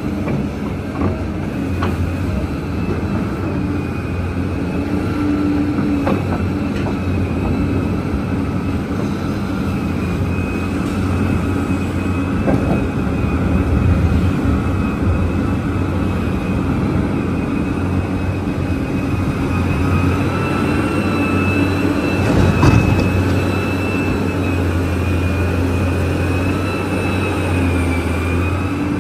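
Large Liebherr mining excavator's diesel engine running steadily under a high whine, with a few knocks and one louder knock late on.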